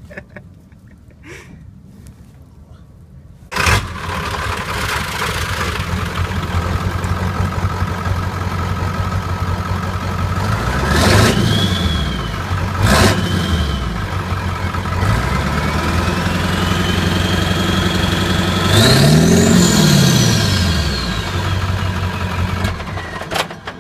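1994 Ford F-350's 7.3 L PowerStroke turbo-diesel V8 running straight-piped, with only the down pipe left on. The engine comes in abruptly a few seconds in, idles and is revved twice briefly. It is then held up in a longer rev, during which the turbo's whine climbs steeply and falls back as it spools down, and the sound cuts off just before the end.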